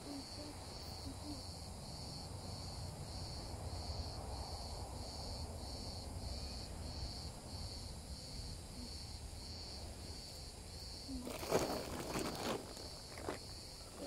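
An insect chirping in an even, high pulse, about two chirps a second. About eleven and a half seconds in there is a loud burst of rustling and crackling from tent fabric being handled.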